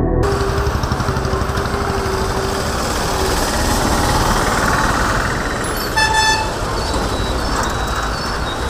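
Busy road traffic: trucks, buses, auto-rickshaws and motorcycles running past, with a vehicle horn sounding once, briefly, about six seconds in.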